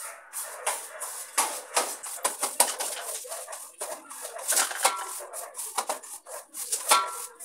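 Push broom with blue plastic bristles sweeping a bare floor in quick, short strokes, about three a second.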